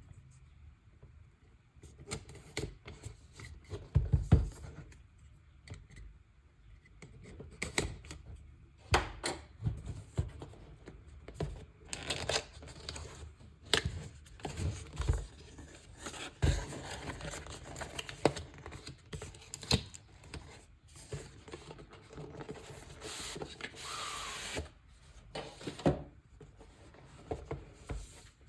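A cardboard product box being unboxed by hand: a string of clicks, taps and knocks, the loudest about four seconds in, with stretches of cardboard and plastic packaging rustling and scraping in the second half.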